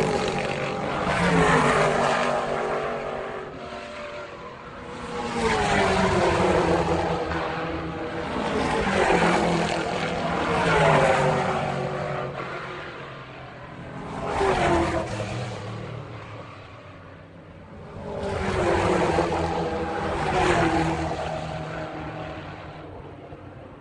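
Race car engines passing one after another, each swelling up and then dropping in pitch as it goes by, several times over.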